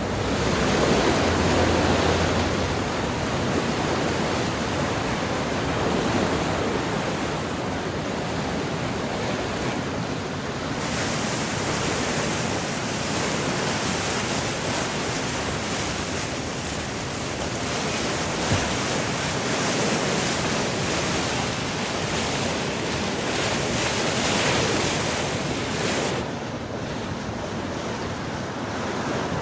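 Swollen Lampasas River floodwater rushing past the pillars of a bridge: a steady, even water noise, the sound of a river near major flood stage.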